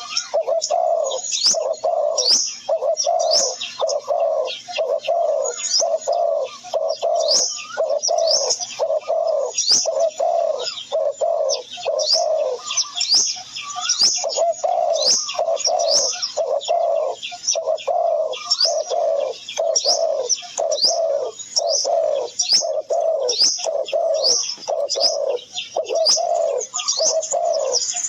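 Birds calling: a steady run of low coos, about two a second with a short break midway, under many short, high, falling chirps.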